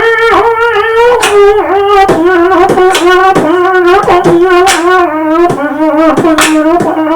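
Human beatboxing: a sustained, wavering horn-like vocal tone held over a steady beat of sharp percussive mouth hits about twice a second, the tone stepping down in pitch about two seconds in.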